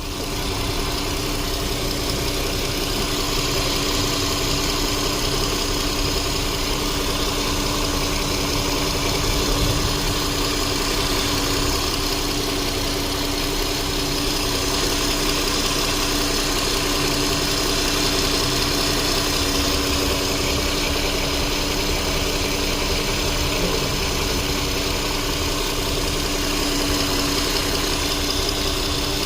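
Volkswagen Passat 3.6 VR6 engine idling steadily, with an even, unchanging hum. The car has low fuel-rail-pressure and regulator-valve codes, and the owner suspects a fuel pressure regulator fault.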